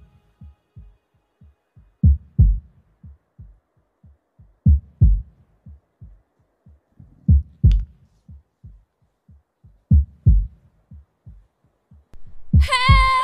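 Heartbeat sound effect: slow double thumps, lub-dub, about every two and a half seconds, with faint quick ticks between them. Near the end a siren starts, its pitch bending downward.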